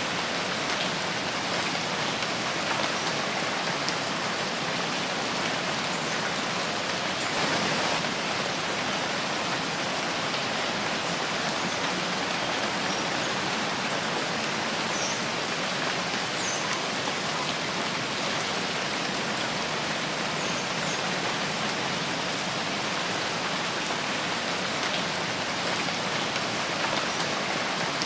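Steady rain falling in a forest, an even, dense patter of drops, swelling slightly about seven seconds in.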